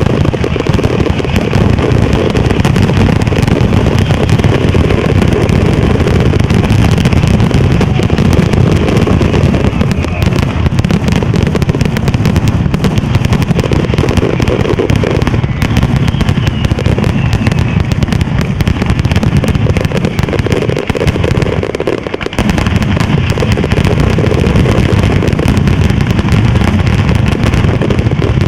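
A batteria alla sanseverese fireworks battery: a long chain of ground-laid firecrackers going off in a dense, continuous rattle of bangs, easing only briefly a little past two-thirds of the way through.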